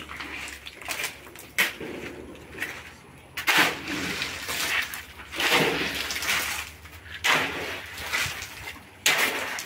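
Steel shovel scraping into and turning a heap of gravel and cement on a concrete floor while concrete is mixed by hand, in repeated gritty scoops about one every one to two seconds.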